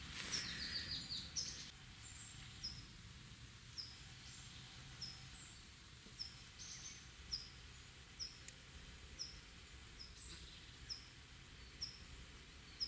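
Faint outdoor quiet with a small bird repeating a short high call about once a second. Rustling in the first second and a half.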